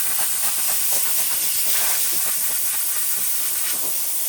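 Steady hiss of rushing air, even throughout with no beat or pitch.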